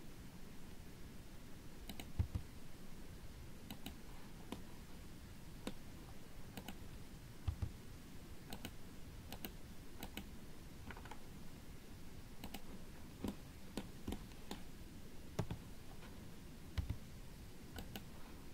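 Faint, scattered clicks of a computer keyboard and mouse, a key press or click about every second, a few landing with a low thump.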